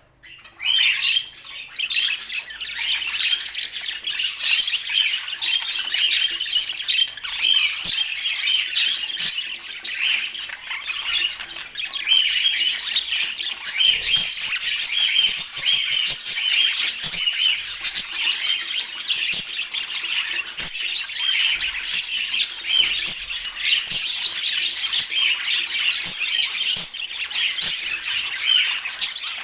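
Budgerigars chattering and squawking: a continuous stream of short chirps, squawks and warbles. It starts just after a brief gap at the very start.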